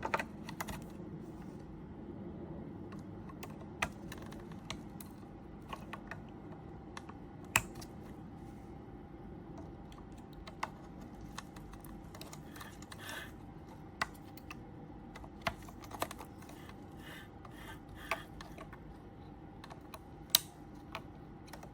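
Scattered sharp clicks and taps, roughly one every one to three seconds, as new batteries are pressed into the plastic battery holder of an Apollo Xpander wireless heat sensor, over a faint steady hum.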